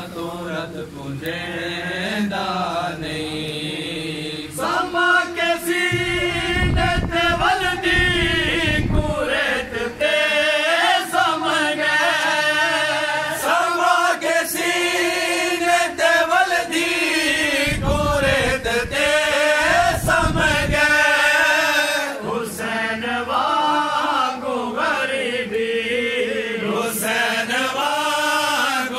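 A group of men chanting a noha, a mourning lament for Hussain, together in unison. The chant grows fuller about five seconds in.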